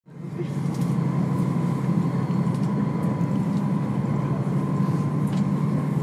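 Train running: a steady low rumble with a faint constant whine above it, fading in over the first second.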